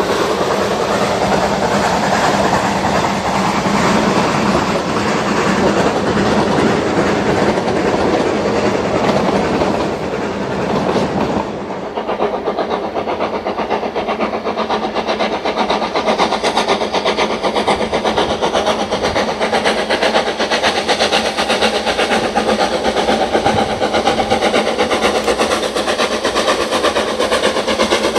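Narrow-gauge steam train running, with a steady rush of noise and rapid wheel clicks on the rails. The sound changes abruptly about twelve seconds in, to a brighter, thinner version of the same train noise.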